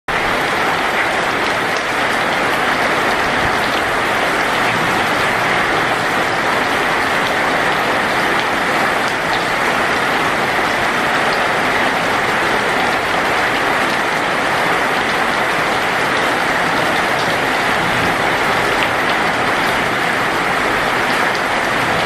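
Heavy rain falling steadily on leaves, a dense even hiss of drops that neither swells nor fades.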